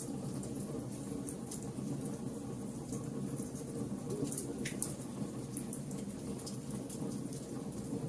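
Fire burning: a steady low rumble of flames with frequent sharp crackles and pops scattered throughout.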